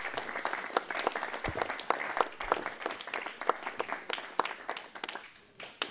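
Studio audience applauding with many hands clapping; the applause thins out and dies away near the end.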